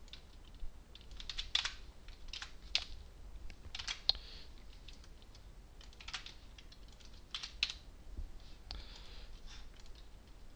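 Computer keyboard typing: quiet keystrokes in short, irregular bursts of a few keys at a time, with pauses between them.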